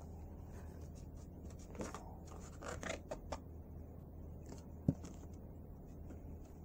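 Faint rustling and crinkling of a picture book's paper pages as the book is handled and a page is turned, with a few short crackles and one sharp tap about five seconds in.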